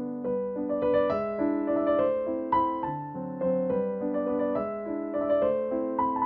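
Background music: a soft piano melody, new notes struck a couple of times a second over held chords.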